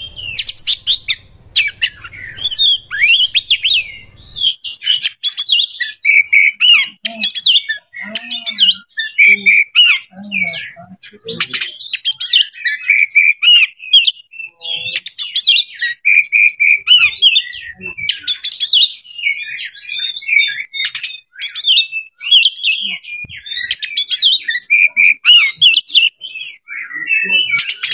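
Oriental magpie-robin singing: a long, fast, varied run of whistles, chirps and trills with only brief pauses.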